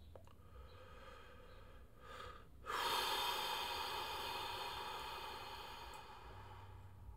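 A man's short breath in, then a long breathy sigh out that starts suddenly, is strongest at first and slowly fades over about four seconds.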